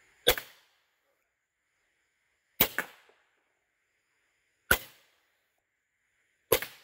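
SMG .22 air rifle firing four single shots about two seconds apart. Each is a sharp crack with a smaller second knock right after it.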